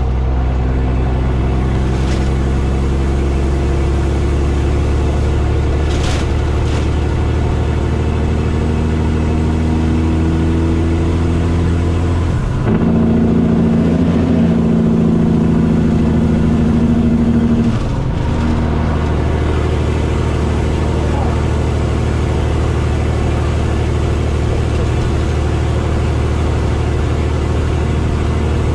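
Caterpillar C15 diesel of a Kenworth T800 running under way at highway speed, heard inside the cab. Its note breaks briefly and changes pitch twice, about twelve and eighteen seconds in, and it runs louder in between.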